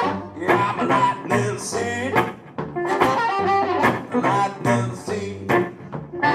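Blues harmonica played into a vocal microphone, its notes bending in pitch, over guitar and a low, regularly repeating beat.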